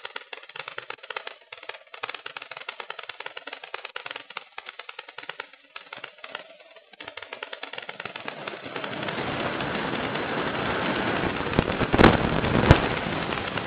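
Air rushing over a model electric glider, heard through its onboard keychain camera's microphone: a fast crackling rattle for the first half, then a rush of wind that builds steadily as the glider dives, loudest near the end. Two sharp cracks a little over half a second apart near the end.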